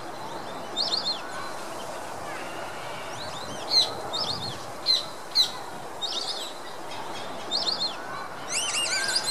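A flock of white-faced whistling ducks calling: short runs of high, clear whistled notes, several times, with a denser run of calls near the end, over a steady background hiss.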